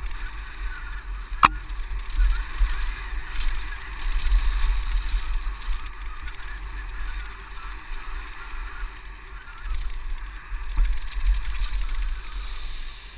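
Mountain bike riding down a rough dirt trail: wind buffeting the bike-mounted camera's microphone and the bike rattling over the ground, with one sharp knock about one and a half seconds in.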